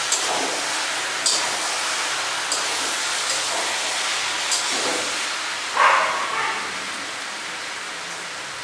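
Shukto vegetables cooking in a steel pan over a gas flame, a steady sizzling hiss, with a few light metallic clinks in the first five seconds. About six seconds in comes a brief, louder yelp-like sound.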